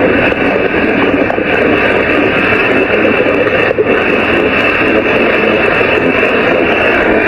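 Loud, continuous stomach growling.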